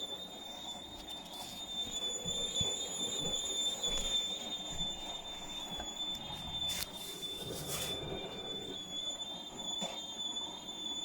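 Hotpoint appliance making a really bad squeaking noise: a steady high-pitched squeal, wavering slightly in pitch, over a low running rumble.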